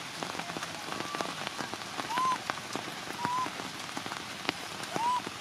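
Heavy rain falling on the ground and leaves, with close drips. Over it a baby macaque gives four short, arching cries, about a second apart.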